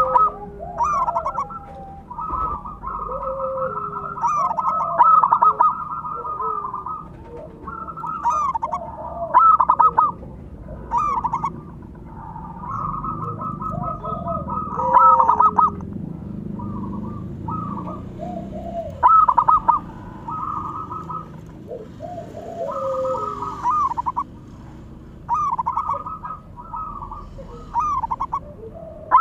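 Zebra doves (perkutut) calling: phrase after phrase of fast staccato cooing notes, with lower sliding notes beneath and short gaps between phrases.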